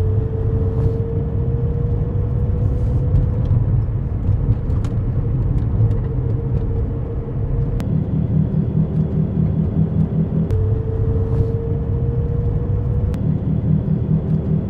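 Car driving at road speed with a steady low road and tyre rumble, its wheel bearing freshly fixed. A faint tone rises slowly in pitch twice as the car gathers speed.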